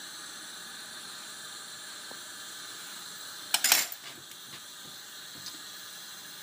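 Steady hiss of a glassworking bench torch flame while a glass marble is melted and rounded in it. A little past halfway there is one short, loud clatter of metal or glass.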